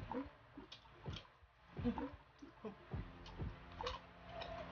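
Close-up eating sounds of sour mango dipped in shrimp paste: wet chewing with separate mouth clicks and smacks, roughly one every half second.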